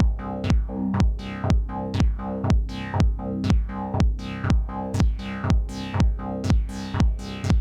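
Behringer DeepMind 12 analog polysynth playing a repeating electronic pattern over a Roland TR-8 drum machine beat, with a steady kick about twice a second and clicky hats between. Each synth note has a filter sweep that grows brighter in the second half.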